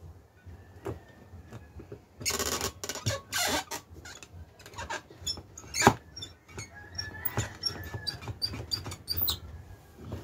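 Paper rustling and sliding as a stack of sheets is pushed into a two-hole desk paper punch. About six seconds in the punch is pressed down with one loud click, among small clicks and scrapes of the punch and paper.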